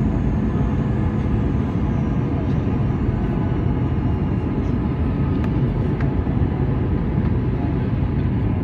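Steady cabin noise of an Airbus A321 on approach, heard from inside the cabin over the wing: the jet engine's hum and air rushing past the fuselage, an even low rush with no change in level.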